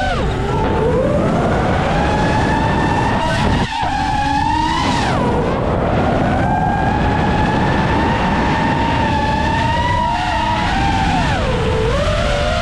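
7-inch FPV quadcopter's motors and propellers whining over a heavy rush of air. The pitch dives right at the start, climbs back and swings up and down with the throttle, then dives again near the end. The sound briefly drops out about three and a half seconds in.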